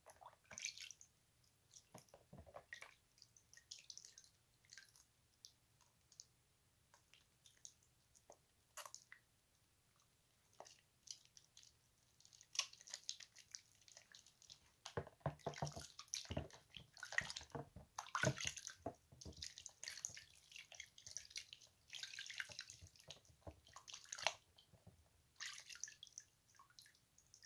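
Wet hands splashing in a basin of water and rubbing two bars of Dove and Caress soap together, making small splashes, drips and wet squishing. The sounds are faint and scattered at first and come thicker and busier through the middle.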